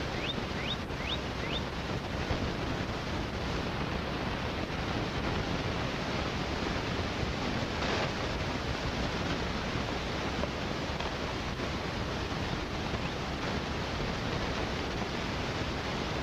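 Steady, even hiss of outdoor background noise with no distinct source, and a few faint, short rising chirps in the first two seconds.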